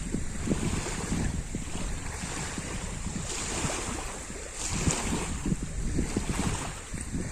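Lake water splashing in small, irregular slaps of waves, with wind rumbling on the microphone.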